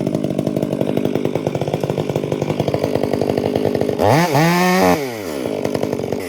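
Two-stroke chainsaw running at a low, pulsing idle, then revved once about two-thirds of the way in: the pitch rises and drops back over about a second, the loudest moment, before the saw settles back to idle.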